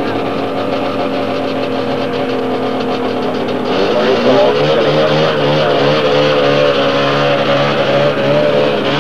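Racing snowmobile two-stroke engines running. About four seconds in, a louder engine comes in with its pitch wavering up and down over a low, pulsing note.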